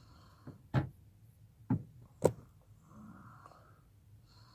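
A hand wire-stripping tool clicking sharply three times as it is worked on speaker wire, with faint handling noise between the clicks.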